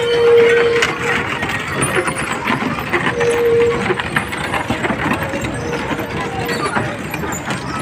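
Wooden ox-cart axles singing: a steady whine that swells and fades three times, over crowd voices and scattered knocks.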